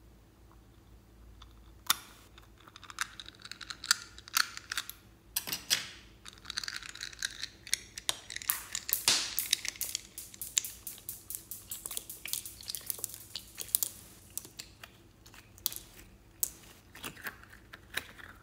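Close-up crackling and irregular clicking as a rubber pineapple squishy toy is cut open with scissors and pulled and squeezed by hand. It starts about two seconds in, grows busiest in the middle and thins out near the end.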